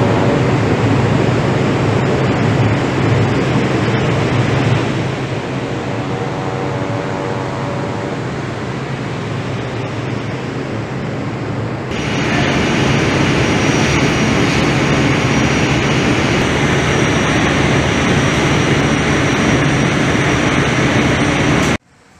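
Steady rushing noise aboard a ship under way, with a low hum and faint pitched tones that fade in and out. About twelve seconds in it changes abruptly to the louder, harsher din of a ship's engine room, large diesel engines running with a high whine, which cuts off suddenly near the end.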